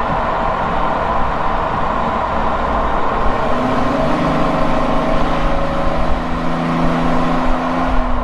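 Opel Omega 3.2-litre V6 exhaust heard close to the tailpipe while driving, over a steady rushing noise of the car moving. From about three and a half seconds in, the engine settles into a steady drone at constant revs.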